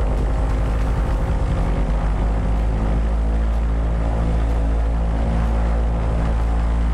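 Both engines of a light twin piston airplane running, heard from inside the cockpit: a steady drone of engines and propellers.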